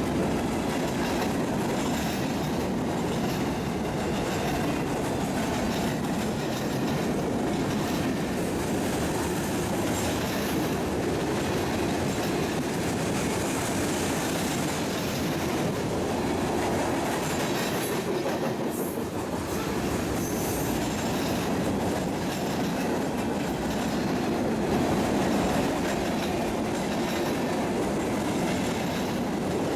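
Railroad cars rolling past steadily, wheels clicking over the rail joints, with some wheel squeal.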